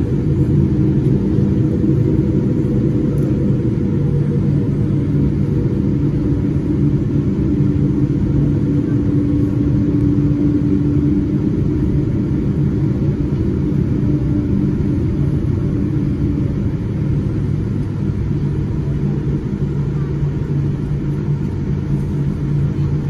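Cabin noise of a Boeing 787-9 with Rolls-Royce Trent 1000 engines at low thrust while the jet rolls slowly on the ground: a steady rumble with a low hum, not spooling up.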